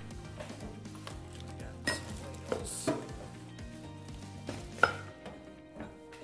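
Plastic packaging crinkling and rustling as plastic-wrapped wheelbarrow parts are handled, with a few sharp knocks as parts are lifted out and set down, the loudest about five seconds in.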